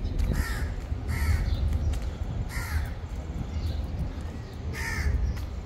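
A crow cawing four times, short harsh calls spread over a few seconds, over a steady low rumble.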